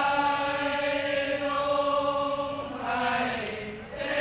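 Thai royal barge-rowing chant (he ruea), sung by the oarsmen's chorus as they pull in time. Their voices hold a long drawn-out note, change syllable about three seconds in, then begin a fresh held note just at the end.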